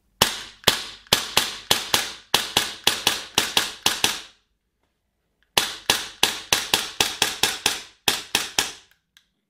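Tokyo Marui HK45 gas blowback airsoft pistol firing two quick strings of about a dozen shots each, roughly three shots a second, each a sharp crack with the slide's blowback. The strings are separated by a pause of about a second and a half.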